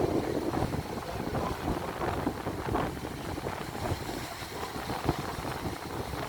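Wind buffeting the microphone at sea, an uneven rush with waves washing underneath.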